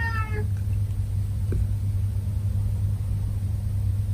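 A steady low hum throughout, with the end of a domestic cat's meow in the first half second and a faint click about a second and a half in.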